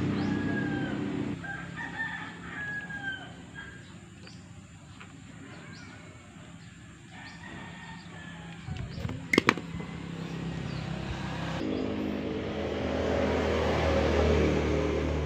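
A rooster crowing twice in the background, with two sharp metal clicks in quick succession about nine seconds in. A low engine drone builds over the last few seconds.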